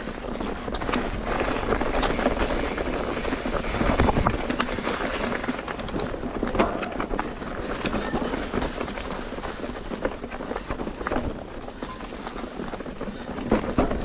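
Mountain bike riding over a rough trail: steady tyre and wind noise with frequent rattles and knocks.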